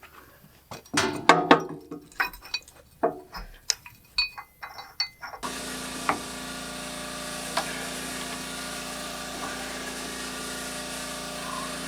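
Steel tools and a large bolt clinking and knocking against steel parts. About five seconds in, a steady mechanical hum starts and holds.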